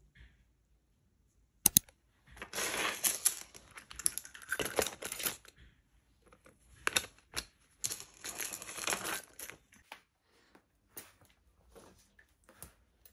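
Crinkling and rustling of something being handled, in two spells of a few seconds each, with a few sharp clicks before, between and after them.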